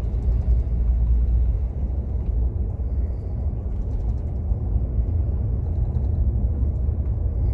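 Intercity coach driving on a wet highway, heard from inside the front of the cabin: a steady low rumble of engine and road noise.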